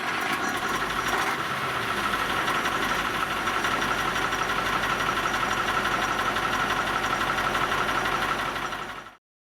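Tatra 162 prototype truck's engine running steadily at idle, just after catching on a start. It cuts off abruptly about nine seconds in.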